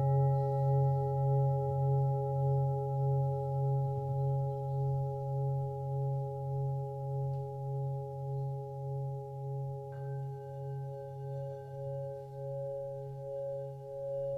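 Sustained ringing bell tones with a slow, even pulsing wobble as they fade; a fresh strike about ten seconds in adds a higher ringing tone.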